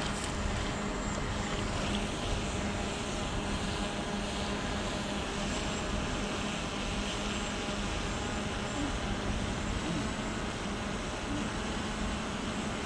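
Camera drone hovering, its propellers giving a steady hum.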